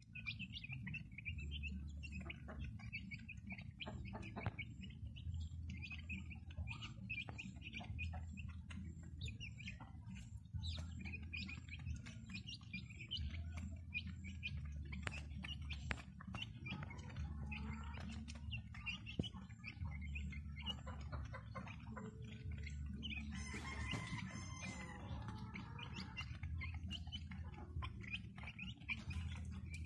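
A flock of native chickens peeping and chirping in quick, high, repeated calls while pecking feed off a concrete floor with many small taps. One bird gives a longer, lower call for about two seconds, past the middle.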